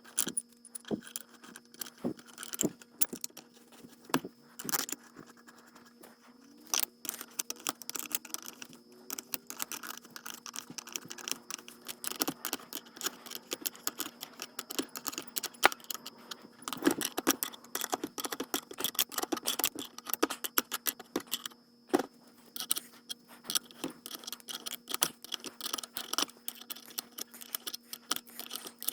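Metal parts and hand tools clinking and scraping: many small irregular clicks and knocks as differential bearing caps and races are fitted, over a steady low hum.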